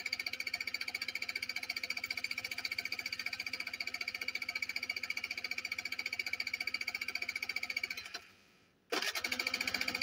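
Scooter engine cranking on its electric starter in a fast, even rhythm with a steady high whine, not catching: a failed cold start. Just past eight seconds in, the cranking stops for under a second, then starts again.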